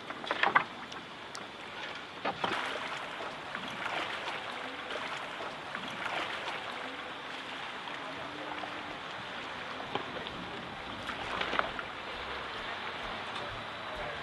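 Paddle strokes splashing in lake water beside a small paddle catamaran, about one every two seconds, over steady wind and water noise. A sharp knock about half a second in.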